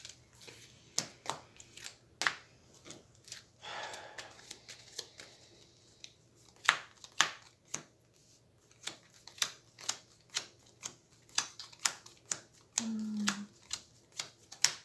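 Hero Realms playing cards being handled on a table: cards picked up, dealt and laid down, making irregular sharp snaps and taps, with a longer swish of cards sliding about four seconds in.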